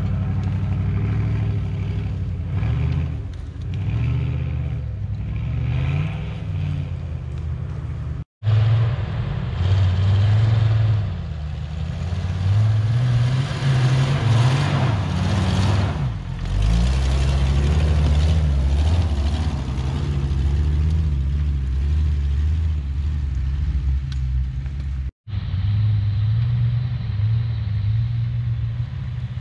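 Off-road 4x4 engines, a Jeep Grand Cherokee among them, revving up and down under load as the vehicles crawl over rough forest ground. The sound drops out abruptly for an instant twice, at shot changes.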